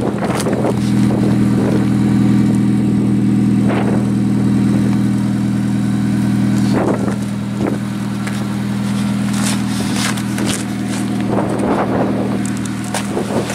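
A 2003 Honda Civic's 1.7-litre D17 SOHC four-cylinder engine idling steadily on its stock exhaust manifold, before the aftermarket header goes on. A few light clicks or knocks sound over the engine.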